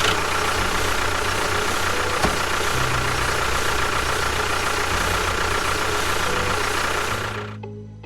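Engine running steadily with a fast low throb, dying away near the end.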